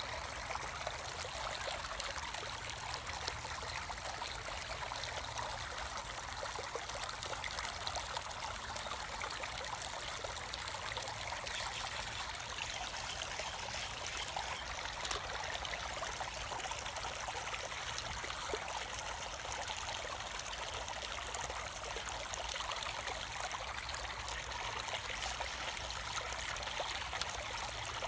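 Shallow creek water trickling and flowing steadily over rocks.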